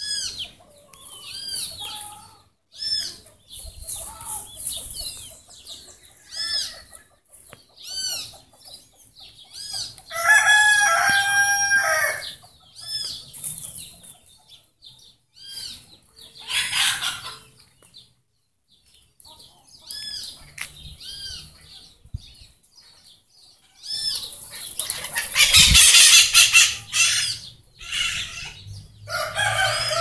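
Small birds chirping repeatedly with short arched calls. A rooster crows in a long call about a third of the way in, with shorter calls later and near the end. A loud harsh burst comes about five seconds before the end.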